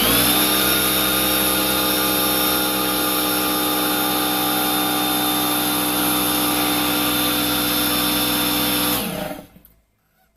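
Small electric air compressor running steadily with a hum made of many even tones over a hiss. It shuts off about nine seconds in and winds down within half a second.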